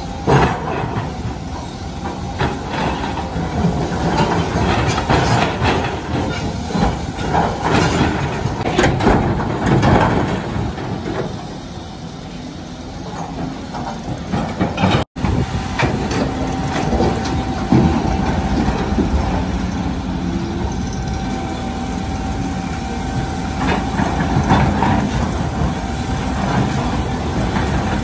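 Volvo EC350D crawler excavator's diesel engine and hydraulics working under load while its steel bucket digs into blasted rock, with stones clattering and scraping against the bucket. A steady whine runs through the second half.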